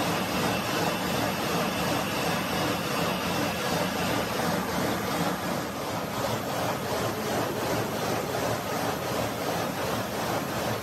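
Steady machine noise with faint hums, turning rougher and more fluttery about four seconds in.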